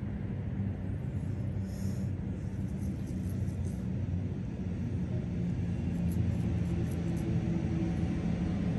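A train's low rumble and motor hum, growing steadily louder as it approaches.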